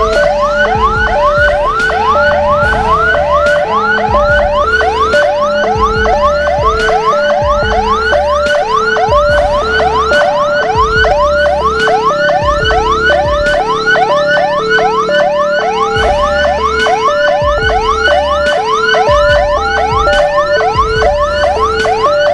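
Emergency escort siren, the 'Hammer' type, sounding without a break: fast repeated rising whoops, about two a second, over a steady two-note hi-lo alternation.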